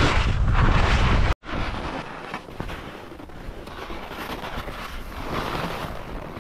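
Skis hissing and scraping through snow on a steep descent, with heavy wind rumble on the microphone. The sound cuts out suddenly about a second and a half in, then comes back quieter.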